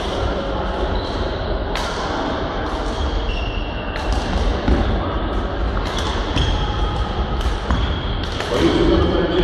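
Badminton play in a large, echoing sports hall: sharp racket hits on the shuttlecock at uneven intervals, over a steady background of voices and play from other courts.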